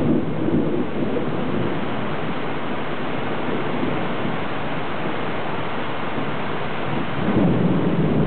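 Thunder rumbling over a steady hiss of rain during an approaching thunderstorm, with the rumble swelling near the start and again about seven seconds in.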